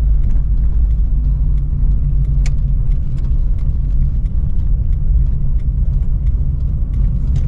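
Car driving along a town street, heard from inside the closed cabin: a steady low rumble of engine and road noise, with faint scattered ticks.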